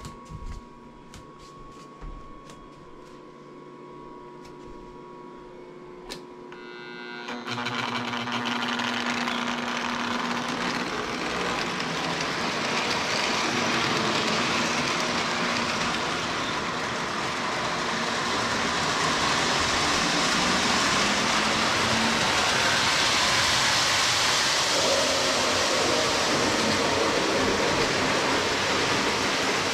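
Battery-powered fan motor of a Lionel 3470 target balloon launching car starts up after a few light handling clicks. It then runs with a steady whir and rush of air.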